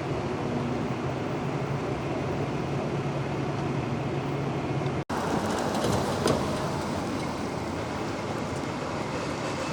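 Steady engine rumble with a low hum, broken by an abrupt cutout about five seconds in, after which the rumble goes on with a few faint clicks.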